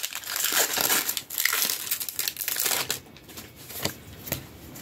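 Foil booster-pack wrapper crinkling as it is handled and torn open. The crackle is densest for the first three seconds, then gives way to lighter rustles and a few clicks.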